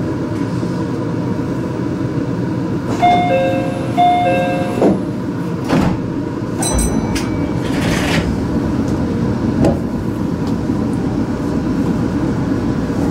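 Meitetsu commuter train at a station stop. A two-note chime sounds twice, the sliding doors close with a few knocks, and a short signal tone and an air hiss follow. The traction motors then start up and the train pulls away with steady running noise.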